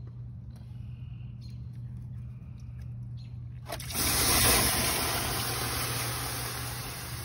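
A few faint clicks of fumbling, then about four seconds in a clogged rubber body drain plug is pulled and trapped rainwater rushes out in a sudden loud gush that slowly eases. The blocked drain is what let water into the cab and soak the carpet.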